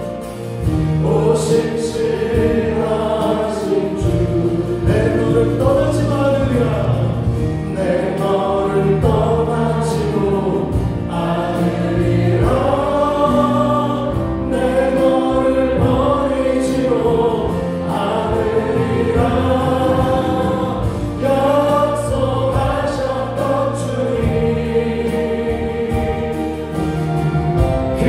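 A group of voices sings a gospel worship song with a live band: electronic keyboards, bass guitar and drums with occasional cymbal strokes.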